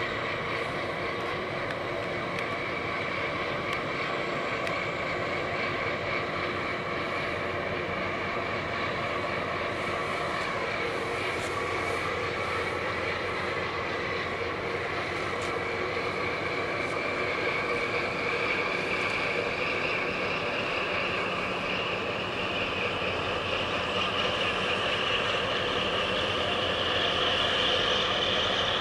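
Steady mechanical drone of a passing large container ship and its tugboat, their engines and machinery running. A whine in it rises in pitch and grows slightly louder over the last ten seconds.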